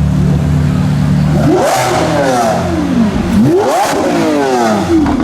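V12 supercar engine revved twice: it holds a steady low note, then climbs sharply in pitch and falls away, then does the same again about two seconds later.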